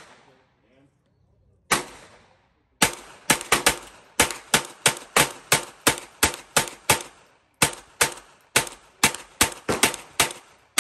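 CMMG Banshee firing .22LR through a conversion kit: a single shot, then about a second later a long string of rapid semi-automatic shots, about two to three a second.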